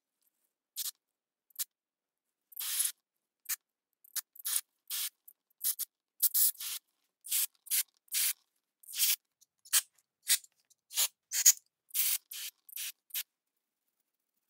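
Aerosol carburetor cleaner sprayed through a thin extension straw in many short, separate hissing bursts, blasting out the passages of a dirty chainsaw carburetor.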